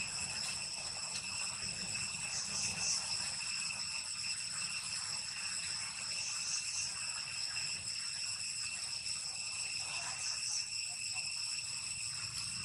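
Steady, high-pitched chorus of insects, several shrill tones held together without a break, swelling a little louder now and then.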